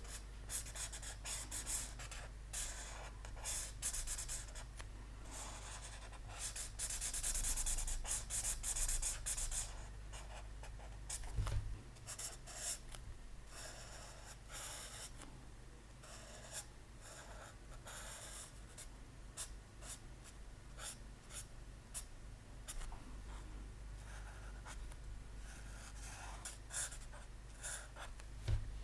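Pen scratching on paper in many short strokes while drawing, with a denser run of strokes about a quarter of the way in. There is a soft knock in the middle and another near the end.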